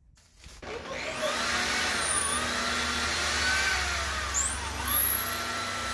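Electric drill running, its whine gliding up and down in pitch as the speed changes, with a louder surge about five seconds in.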